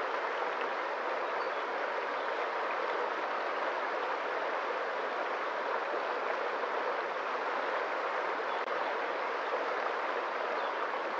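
Water streaming and splashing in a steady, even rush.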